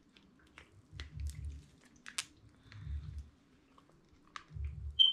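A silicone mold being flexed and peeled away from a cured epoxy resin tray: soft rubbery squishing with scattered crackles and clicks and low handling rumbles in a few short bouts, then a short high squeak near the end.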